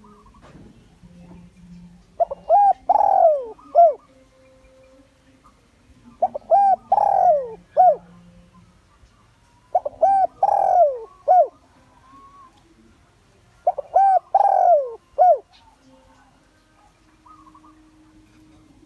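Spotted dove (Streptopelia chinensis) cooing, four phrases about four seconds apart, each a few short notes around a longer falling coo. It is the male's territorial call, used as a decoy to draw wild males in to fight.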